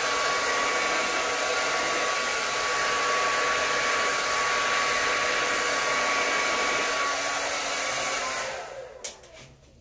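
Hair dryer running steadily, a rush of air with a faint steady whine, blowing poured acrylic paint outward across the canvas. About 8.5 s in it is switched off and winds down, with a single click just after.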